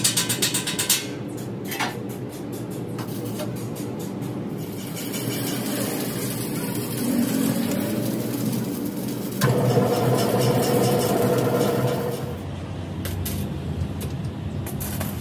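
Steady machinery hum from a workshop press and its electric motor, with metal clinking at the start and a louder stretch of machine noise beginning suddenly about nine and a half seconds in and lasting under three seconds.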